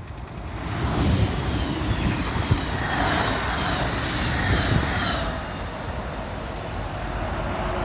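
DB Class 425 electric multiple unit running past with a loud rumble and high squealing tones that fall in pitch. This squeal is what earned the class its nickname 'Quietschie' ('squeaky').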